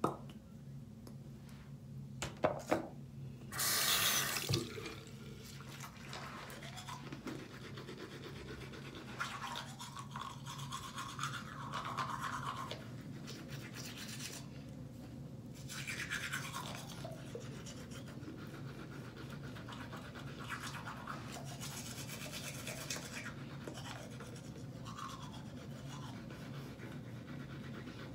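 Toothbrush scrubbing teeth, an uneven rasping that goes on and off over a steady low hum. A brief loud rush of noise comes about four seconds in.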